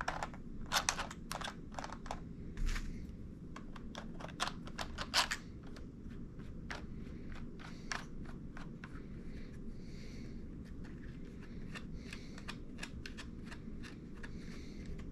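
Quick clicks and taps of a plastic drone-controller tablet mount being handled while its knurled thumbscrews are turned in by hand. The clicks come close together for the first five seconds or so, then more sparsely.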